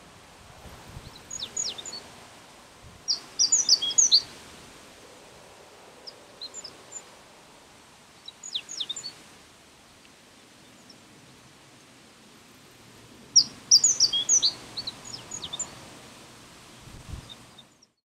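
Male Japanese reed bunting singing: about five short phrases of quick, high, sharp notes a few seconds apart, the loudest about four seconds in and again near fourteen seconds.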